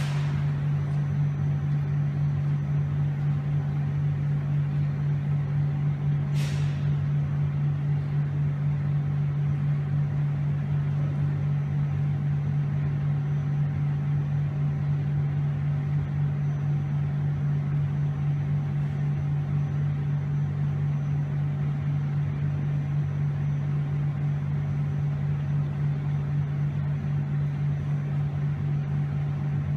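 Steady low hum of the pool's pump machinery running, driving churning water through a dog swimming pool, with a brief hiss about six seconds in.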